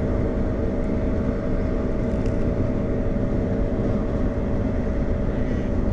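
Steady road and engine noise heard inside a moving car's cabin: a low rumble with an even hum.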